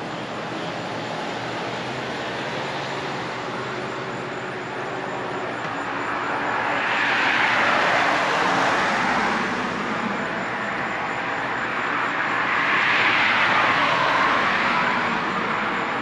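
Cars driving past on a road: a steady wash of traffic, with two vehicles passing close by, one about halfway through and another a few seconds later, each swelling and then fading away.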